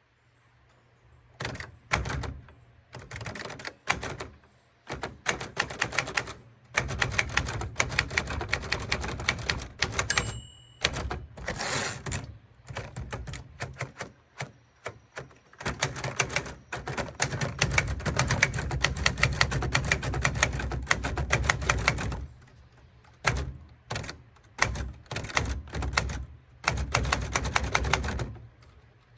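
Typewriter keys striking in quick runs of clattering clicks, broken by short pauses, with a longer unbroken run of typing in the second half.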